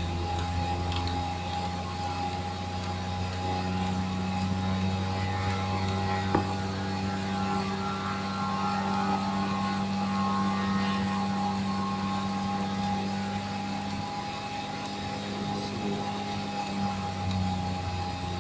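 Steady drone of an aircraft cockpit: a low machine hum with a steady higher whine above it, and a single sharp click about six seconds in.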